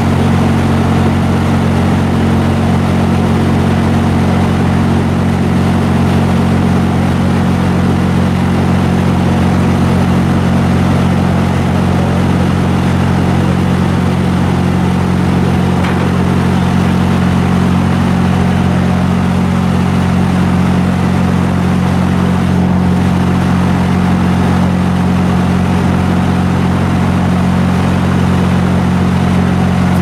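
Mobile wood chipper running at a steady speed: a loud, constant engine drone that neither rises nor falls.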